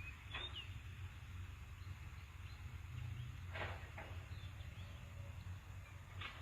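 Faint outdoor ambience: small birds giving brief high chirps over a steady low rumble, broken by a few short clicks.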